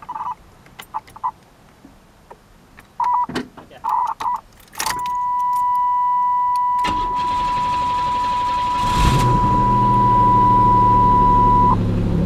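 Buick Century station wagon being started: a few short warning-chime beeps, then a steady warning tone as the ignition comes on. The starter cranks for about two seconds before the engine catches and settles into a steady idle, and the tone cuts off near the end.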